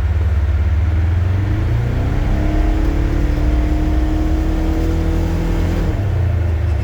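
2026 Polaris Ranger Northstar UTV running, with a whine that starts about two seconds in, climbs slowly in pitch and cuts off suddenly near the six-second mark. This is the whining noise the owner reports on deceleration.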